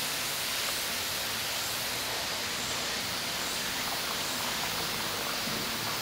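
Waterfall and its stream rushing, a steady even hiss.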